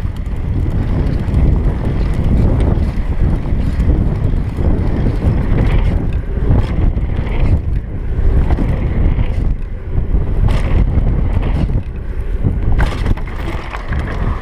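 Wind buffeting the microphone of a GoPro Hero 3 Black on a Trek Session 8 downhill mountain bike riding down a grass and dirt trail, over the rumble of the tyres. Sharp knocks and rattles come from the bike going over bumps, several of them between about ten and thirteen seconds in.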